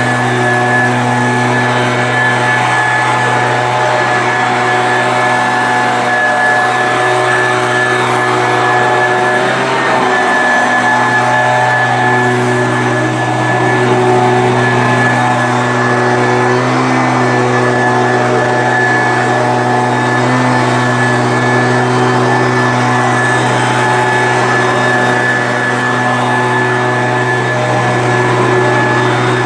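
Stihl BG86 two-stroke handheld leaf blower running steadily, blowing sawdust off the ground.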